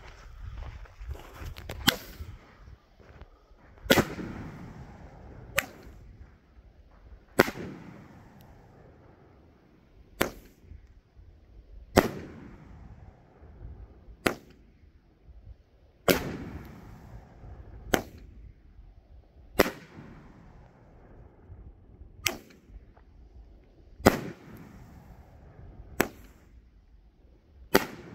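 Seven-shot 360 g consumer firework cake firing, about fourteen sharp bangs roughly every two seconds: each shell's launch thump followed by its bursting break, several breaks trailing off in a rolling echo.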